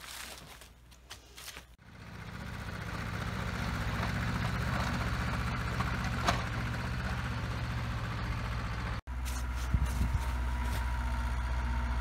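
An engine running steadily at an even low pitch, swelling in after a couple of seconds. It breaks off abruptly for an instant about three quarters of the way through, then runs on.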